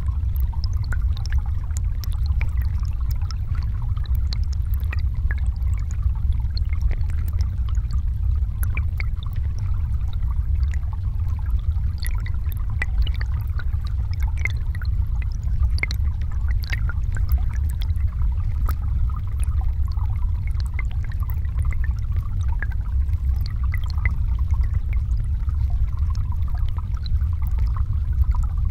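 Flowing river water heard from underwater: a steady low rumble with a faint hiss and many scattered small clicks and ticks.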